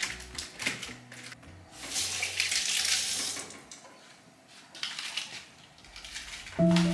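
Kitchen tap running briefly, for about a second and a half starting about two seconds in, between light knocks of handling things on the counter. Background music comes in near the end.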